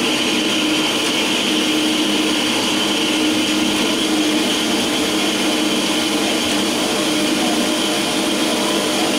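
Carolina horizontal metal-cutting band saw running steadily, its blade sawing through a 3-inch round metal bar with a steady hum and hiss.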